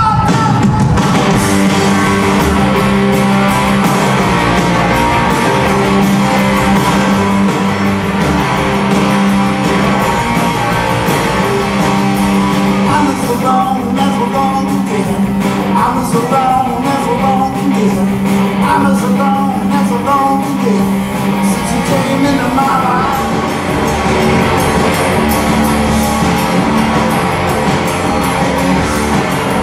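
Live rock band playing: electric guitars, bass and drums, with a voice singing through the middle stretch.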